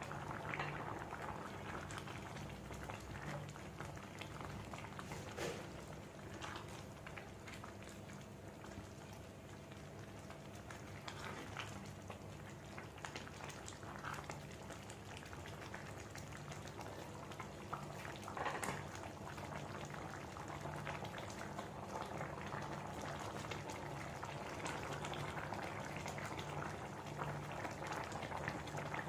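Liquid boiling in a cooking pot on the stove: a steady bubbling with scattered small pops.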